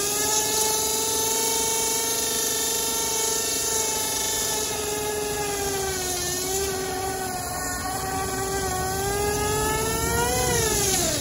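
Turbowheel Phaeton electric scooter's hub motor whining at full speed as its tyre spins in a smoking burnout, with a steady hiss from the tyre scrubbing the ground. The whine holds a steady pitch, dips a little around the middle, climbs near the end and then falls away quickly as the wheel slows.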